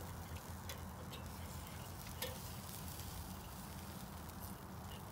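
Faint sizzling of picanha steaks on a charcoal-fired Weber kettle grill, with a few light clicks of metal tongs against the grate as the steaks are turned.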